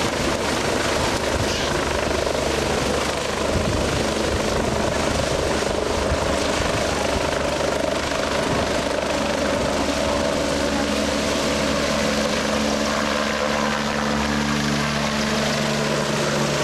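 Rescue helicopter flying low overhead: steady rotor and turbine noise, with a low drone that grows stronger in the last few seconds.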